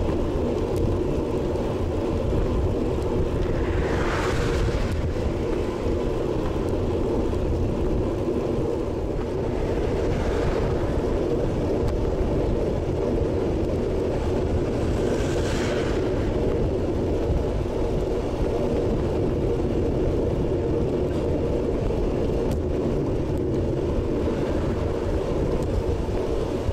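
Steady wind buffeting and road rumble on an action camera's microphone while riding a road bike at about 30 km/h, with three brief swells of rushing hiss a few seconds apart.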